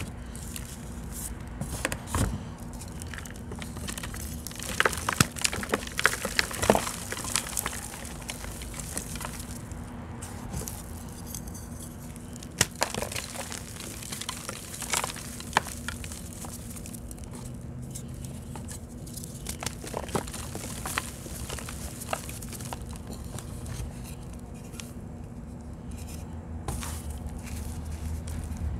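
Reformed chalk blocks, some of them semi-damp, crushed and crumbled in gloved hands: irregular crunches and crackles with crumbling powder, busiest about five to eight seconds in and again around twelve to sixteen seconds.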